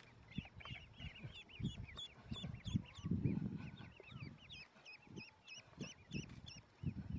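A crowd of ducklings peeping continuously in short, high, overlapping chirps. Under the peeping are soft low rustles and bumps as the ducklings are scooped by hand into a wicker basket, loudest about three seconds in.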